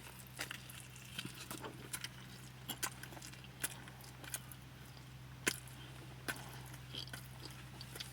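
A person chewing a sandwich close to the microphone: scattered soft mouth clicks and smacks, the loudest about five and a half seconds in, over a steady low hum.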